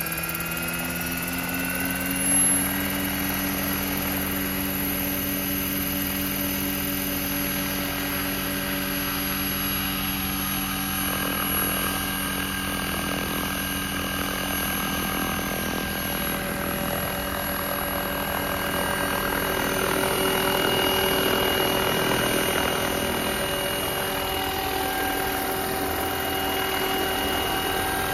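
Electric 12S-powered scale RC helicopter spooling up: the motor and rotor whine climbs in pitch at the start, then holds steady as the rotors run at speed, and the helicopter lifts off in the later part. A brief thump about two seconds in.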